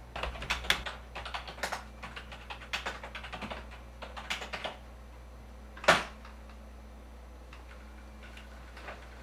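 Typing on a computer keyboard: a quick run of key clicks for the first four and a half seconds, then one single much louder click about six seconds in, and a few faint key taps near the end.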